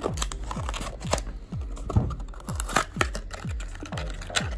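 Clear plastic blister packaging of a diecast toy car crinkling and crackling as it is torn open and the car is pulled out. Background music with a steady beat plays underneath.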